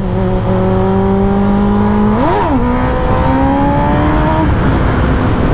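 Kawasaki ZX-10R's inline-four engine breathing through an aftermarket Arrow exhaust, accelerating hard with its note rising steadily. About two seconds in the revs flare up sharply and drop back, then the note climbs again. Heavy wind rush runs under it.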